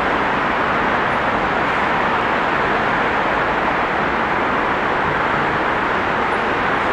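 Steady, even roar of city traffic noise.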